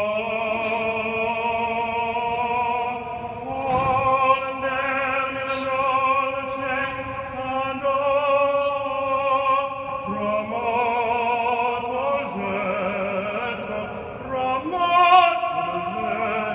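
A man singing opera unaccompanied, in a full operatic voice, holding long notes with vibrato and moving between pitches, swelling loudest about four seconds in and again near the end, in a large empty concrete hall.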